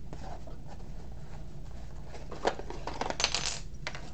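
Cardboard box and small parts being handled: scattered rustles and clicks, with a sharp click about two and a half seconds in and a louder rustle of cardboard a little after three seconds.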